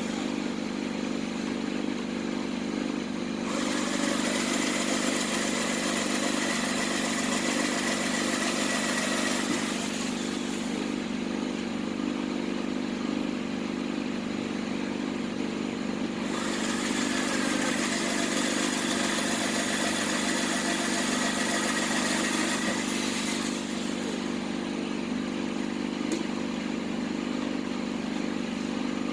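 Electric drill motor running steadily while drilling holes for 5 mm screws in a washing machine drum. There are two stretches of louder hissing, with a thin high squeal, while the bit bites into the metal.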